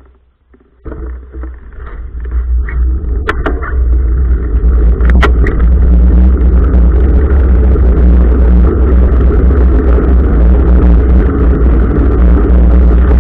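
Loud, steady low rumble of a running vehicle. It builds over the first few seconds, then holds, with a couple of sharp clicks early on.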